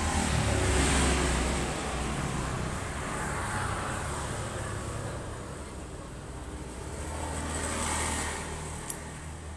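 Road traffic going by: one vehicle passes about a second in and another around eight seconds, over a steady low rumble. There is a short click near the end.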